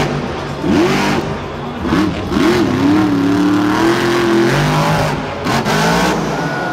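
Monster truck's supercharged V8 revving hard in repeated rising and falling bursts, then held high for about two seconds, then revving up again near the end as the truck launches into a jump.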